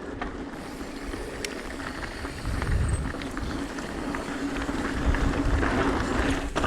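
Mountain bike rolling along a dirt trail: tyre, wind and rattle noise picked up by a bike-mounted action camera, with scattered small clicks and a steady faint hum, the rumble growing louder in places.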